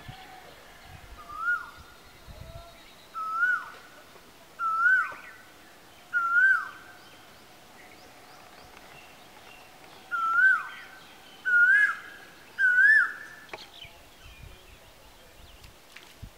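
A bird calling, seven short calls that each rise and then drop sharply in pitch: four in a row, a pause of a few seconds, then three more.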